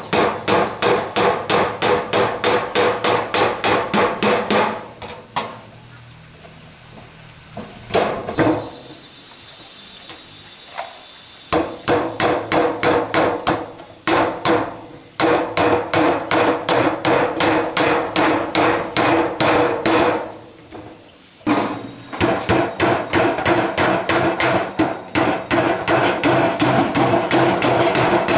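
Hammer pounding on wood in three long runs of quick, even blows, about four to five a second, with pauses of a few seconds between them and a single blow in the first pause.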